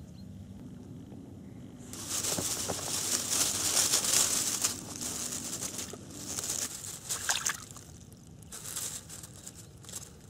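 Dry reed stems rustling and crackling, with water sloshing and trickling, as a caught perch is put into a mesh keepnet in the shallows. It comes in several bouts, the longest and loudest starting about two seconds in.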